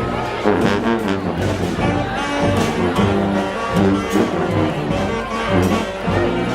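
Street brass band playing live: trombones and trumpets sounding a tune in harmony over a steady beat.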